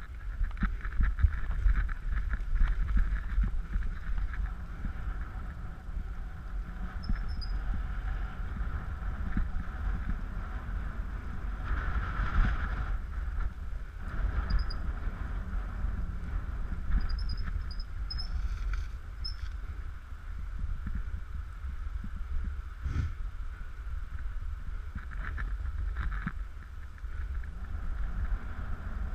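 Steady rumble of a dog-drawn rig's wheels rolling over a gravel forest track, with wind on the microphone. A few faint high squeaks come about 7 and 18 seconds in, and there is a single sharp click about 23 seconds in.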